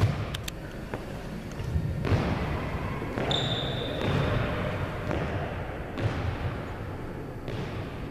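Volleyball being struck and bouncing on a hardwood gym floor: a sharp smack at the very start, then further knocks and thuds with footsteps, and a brief high squeak about three seconds in. Everything echoes in the large gym.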